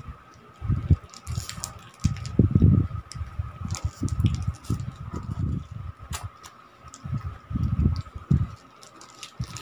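Foil chocolate wrappers crinkling as they are unwrapped by hand, over irregular low rumbling bumps that are the loudest sound, with a faint steady high hum throughout.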